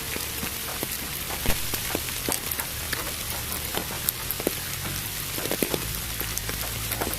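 Steady rain hiss with many individual drops tapping sharply on a surface at irregular moments, blended with steady pink noise and a low hum underneath.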